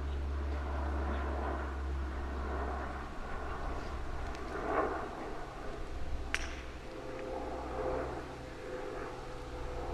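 Wind rumbling on the microphone, steady for the first three seconds and then gusty. One sharp click comes about six seconds in.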